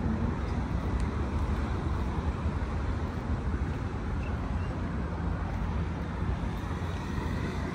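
Steady road-traffic noise from the street alongside: a continuous low rumble and hiss with no distinct events.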